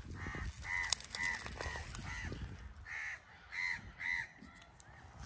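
A crow cawing repeatedly, about eight short caws over the first four seconds, with a couple of sharp clicks about one and two seconds in.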